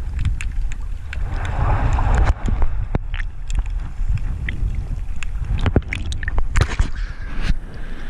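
Underwater sound through a diver's camera housing: a heavy low rumble with scattered sharp clicks and crackles as the spearfisher swims up, then a burst of splashing knocks near the end as he breaks the surface.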